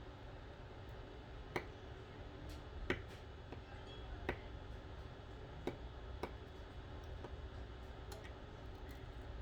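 Small, sharp clicks and ticks of a precision screwdriver working tiny screws in a phone's frame. They come irregularly, a handful over several seconds, over a low steady hum.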